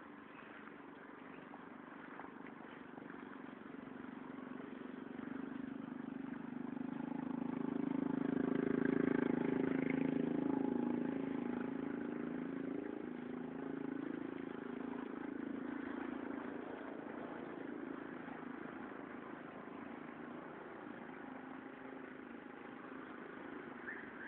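A motor vehicle's engine draws near, is loudest about nine seconds in, then slowly fades away.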